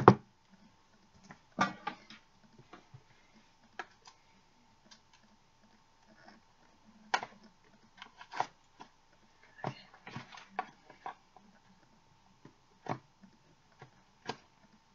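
Sporadic handling noises from a shipping package being picked at and opened by hand: scattered taps, scrapes and rustles, a few in quick clusters about two thirds of the way through.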